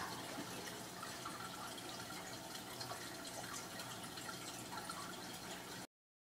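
Aquarium water trickling and splashing steadily, as from a filter's outflow falling into the tank, with many small drip-like splashes over a faint low hum. It cuts off suddenly near the end.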